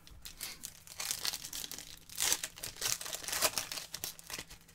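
Foil wrapper of a Topps Chrome baseball-card pack crinkling and tearing as it is ripped open by hand: a run of crackly rustles, loudest a little past the middle.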